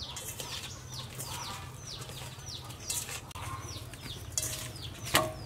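Chicks peeping: a long string of short, high, falling peeps, about two to three a second, with a few sharp clicks among them.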